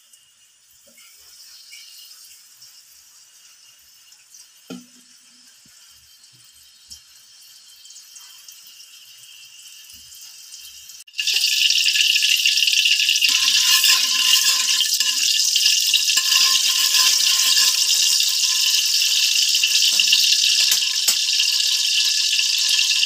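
Cooking oil heating in a wok for sautéing: a faint hiss at first, then about eleven seconds in a loud, steady sizzle starts suddenly, with scattered crackles.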